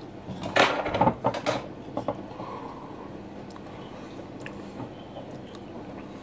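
A short burst of knocks and rustling about a second in, from a toasted sandwich and tableware being handled at a table, then a few light clicks over a faint steady hum.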